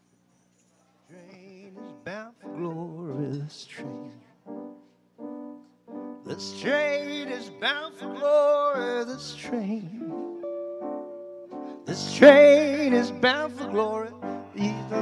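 Recorded music starts after about a second of silence: piano with a lead melody of long, wavering held notes.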